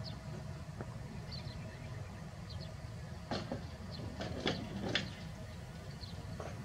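Outdoor ambience: a steady low rumble with short, high bird chirps scattered through it, and a few soft knocks or rustles around the middle.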